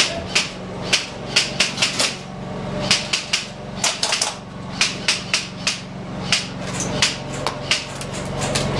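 Airsoft guns firing single shots during a close-quarters room-clearing push: sharp cracks several times a second at irregular intervals, with a steady low hum underneath.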